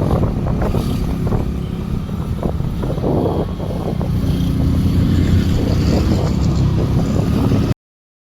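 Wind buffeting the microphone on a moving vehicle, with the engine and road noise running underneath as a dense low rumble. The sound cuts off abruptly near the end.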